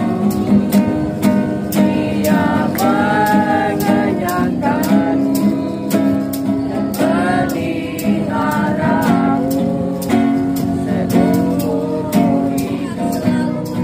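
A group singing a worship song to acoustic guitar, with a steady beat underneath.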